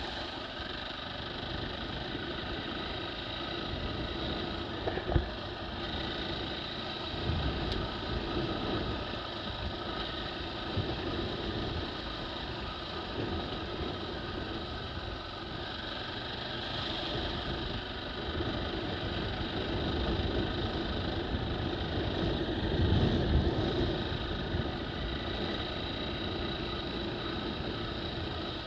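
KTM 450 EXC's single-cylinder four-stroke engine running steadily at a low trail pace, with the rumble of the tyres over a wet, stony track. A sharp knock about five seconds in, and the engine gets briefly louder near the end.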